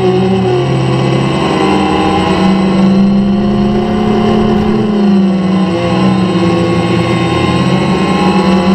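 Quadcopter drone's motors and propellers buzzing steadily, heard from its onboard camera. The pitch wavers up and down as the drone manoeuvres, dipping briefly about five seconds in.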